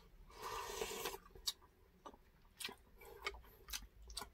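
A short slurp of pork nilaga broth from a wooden spoon, just under a second long, followed by scattered faint clicks of chewing and utensils.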